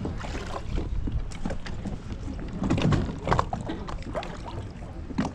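Water splashing and sloshing around a plastic kayak hull, with irregular knocks and clunks, as the kayak is pulled up onto a wheeled kayak dolly sunk in shallow water. The knocks come thickest and loudest about three seconds in.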